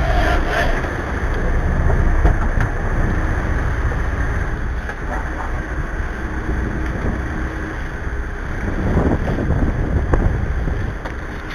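Cabo 40 sportfishing boat's engine running steadily under way, a dense low rumble mixed with wind buffeting the microphone and water rushing along the hull.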